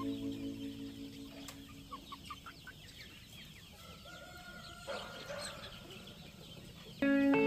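Chickens clucking and calling in a free-range flock, with short clucks and a longer drawn-out call near the middle. Background music fades out at the start and cuts back in near the end.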